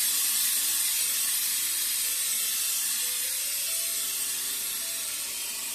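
Handheld steam cleaner jetting steam at the hookah mouthpiece to clean it: a steady, loud hiss that eases a little toward the end.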